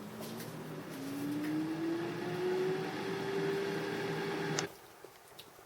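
Air fryer running: its fan motor hums with a whine that rises in pitch as it spins up, then holds steady before cutting off suddenly near the end.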